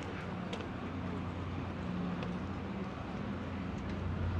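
Open-air city ambience: a steady low hum with an even wash of background noise and a few faint scattered ticks.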